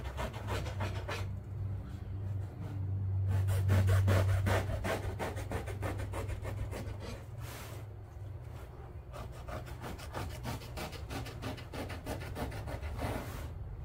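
A bare hacksaw blade sawing back and forth through old seat-cushion foam, in short quick strokes several a second with a few brief pauses, cutting out the deteriorated foam. A low steady hum runs underneath and swells a few seconds in.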